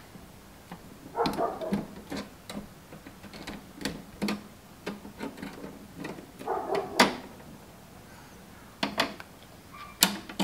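Pliers gripping and working apart two twisted-together copper wire ends: scattered sharp clicks and scrapes of the steel jaws on the wire, the sharpest a little after halfway and near the end.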